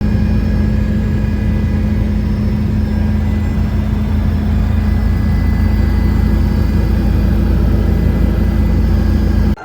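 Loud, steady vehicle engine noise: a constant low hum and rumble with a thin steady whine above it, cutting in and out abruptly.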